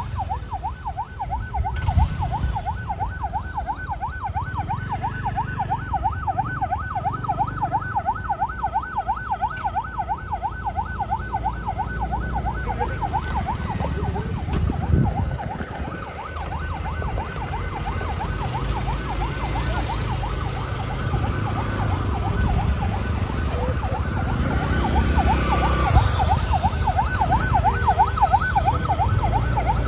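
Police escort siren in a rapid, steady warble over the low rumble of vehicle engines and road noise. The siren fades somewhat in the middle and comes back strong about two-thirds of the way in.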